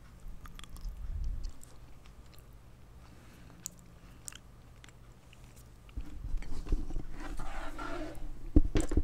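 Close-miked chewing of canned sardines, bones and all, with faint crunches and wet mouth clicks. Near the end come louder low bumps and a sharp knock as the microphone arm is handled.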